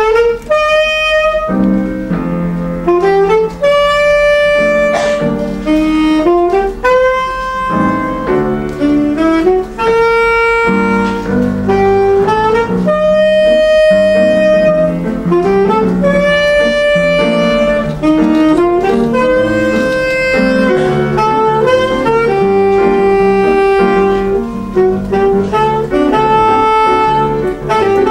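Alto saxophone playing a melody of held notes over piano accompaniment.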